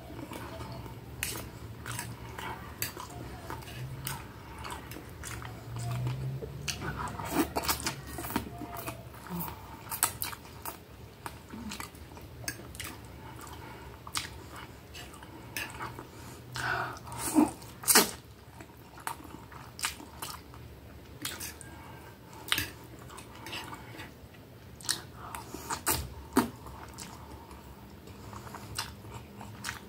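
Close chewing and biting of a mouthful of hamburger patty and spaghetti, with many short wet smacks and clicks scattered throughout, mixed with a fork and knife tapping on the plate.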